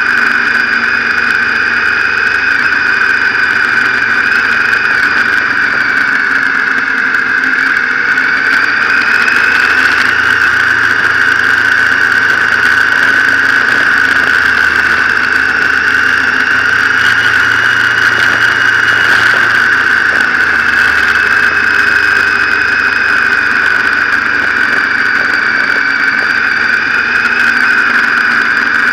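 Motorcycle engine running while riding, heard from a camera mounted on the bike, its revs rising and falling gently, under a loud steady high-pitched whine.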